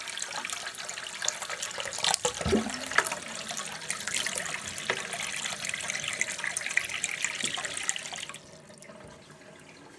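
Water running from a bathroom sink tap into the basin, with a few knocks, then shut off suddenly about eight seconds in.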